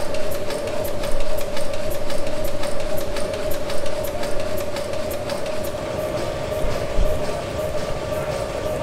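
1904 Sulzer tandem-compound steam engine running, with a rapid, even clicking from its working parts over a steady hum.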